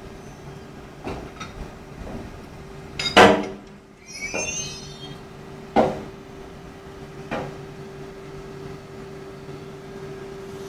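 Metallic clanks of the coupling gear between two electric locomotives being worked by hand, the loudest about three seconds in and followed by a brief rising squeal, with smaller clanks later. A steady hum from the standing locomotives runs underneath.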